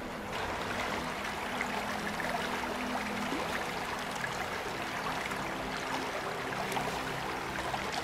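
Shallow stream flowing over rocks and stones: a steady rush of running water.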